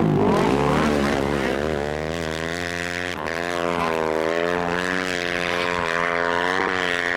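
Snowmobile engine running, its revs rising and falling as the sled is ridden across the snow.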